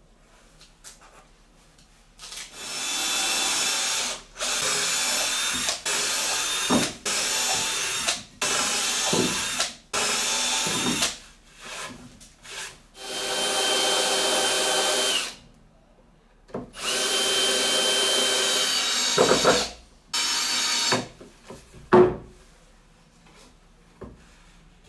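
Cordless drill running in repeated bursts of one to two seconds, drilling into plywood, its motor whine steady within each burst. A single sharp knock follows near the end.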